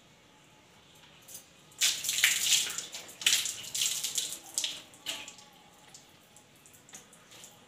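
Water poured from a plastic mug over long hair, splashing onto a concrete floor in three bursts starting about two seconds in.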